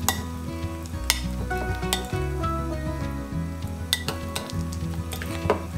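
A metal spoon stirring thick, wet tofu batter in a glass mixing bowl, with several sharp clinks of the spoon against the glass, over soft background music.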